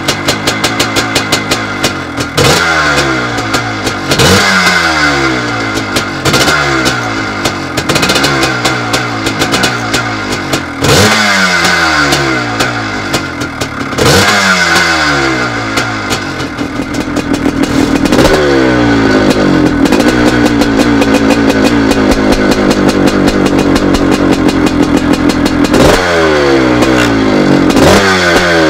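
Maico 490 two-stroke single-cylinder motocross engine running and being revved in repeated sharp throttle blips, each rev falling away again. About two-thirds of the way through it holds a steadier, wavering rev for several seconds, then blips again near the end.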